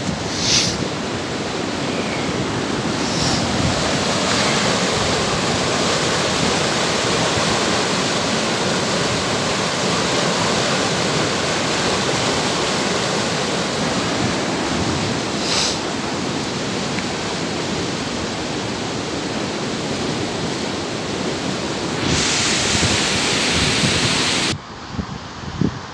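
Swollen floodwater rushing over a concrete weir: a steady, dense rush of water. Near the end it grows louder and brighter for a couple of seconds, then drops away abruptly.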